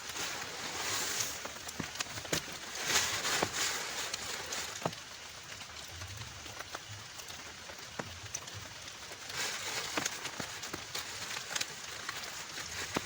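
Heavy rain falling, with many separate drops striking sharply close by. The rain noise swells and eases twice.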